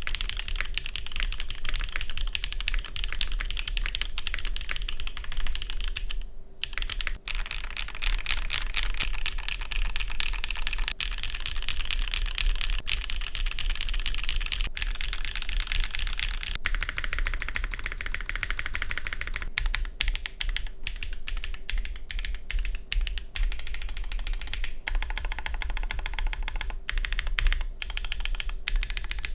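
Fast typing on a custom 75% top-mount mechanical keyboard (TKD PT.1/75) with hand-lubed Geon Raw Zero linear switches, a forged carbon-fibre plate and no foam inside. It is a dense stream of high-pitched keystroke clacks, with a brief pause about six seconds in. The keys near the mounting points are slightly pingy, which is typical of a top mount.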